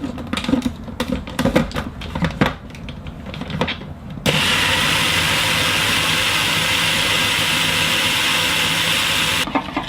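A few clicks and knocks, then an electric food processor's motor switches on about four seconds in and runs steadily for about five seconds, blending a cream cheese and ricotta cheesecake filling, before cutting off abruptly.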